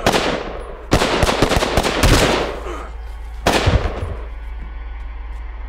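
Handgun shots in quick succession: a rapid string of shots about a second in and another short burst about three and a half seconds in, each with a reverberant tail, giving way to a low steady drone.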